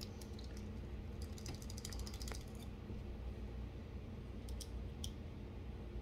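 Small metal clicks and rattles of a balisong's handle, washers and pivot being fitted together by hand, with a quick run of rapid ticks about a second and a half in and a few single clicks near the end.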